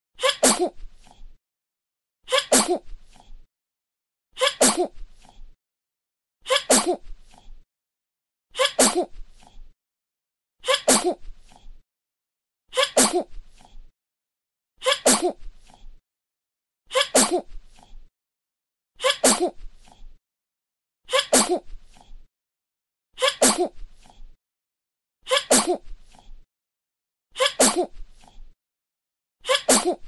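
A baby sneezing: the same short sneeze repeated about every two seconds, with a brief silence between repeats.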